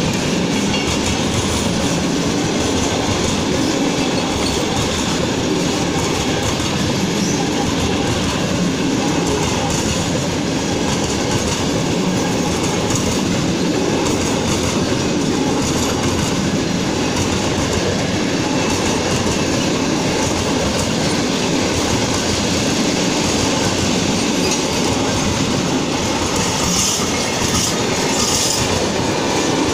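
A train running past on the tracks at a steady speed: a continuous, even rolling noise of wheels on rails.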